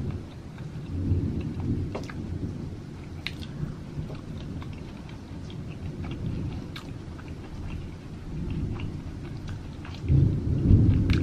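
Close-miked chewing with the mouth closed: a low rumbling mouth noise with a few sharp wet clicks, growing louder near the end.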